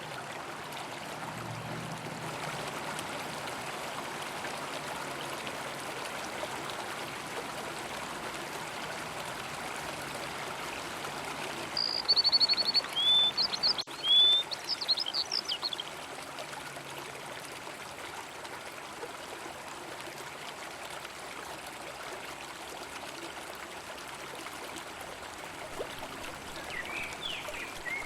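River water flowing steadily. About halfway through, a bird calls loudly for a few seconds: a quick trill, then several rising chirps. A few fainter chirps follow near the end.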